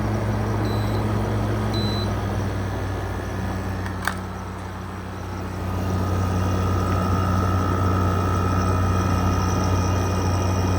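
Arctic King 5000 BTU window air conditioner running in cool with its compressor on: a steady low hum under fan noise. Two short high beeps near the start and a sharp click about four seconds in as the fan setting is changed; the fan sound dips, then comes back up about two seconds later with a thin steady whine.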